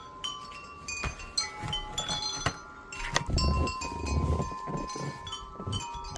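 Metal wind chimes ringing: several tones at different pitches struck at irregular moments, each ringing on. A low rumble joins in about three seconds in and fades by about four and a half seconds.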